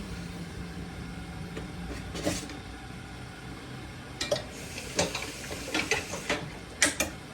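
Kitchen clatter: a run of sharp knocks and clicks, things being handled and moved around in cupboards, starting about halfway in, over a low steady hum.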